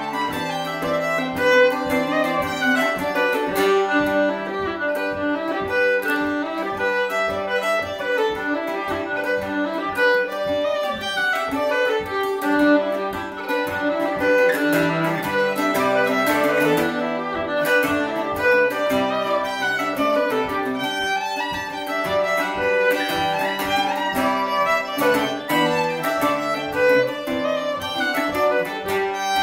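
Fiddle playing a lively Irish traditional tune in G, accompanied by a mandolin-family instrument strummed with a pick in a steady rhythm.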